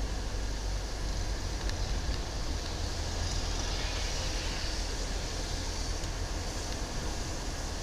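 Steady road noise of a car driving, heard from inside the cabin: a low rumble of engine and tyres with an even hiss over it.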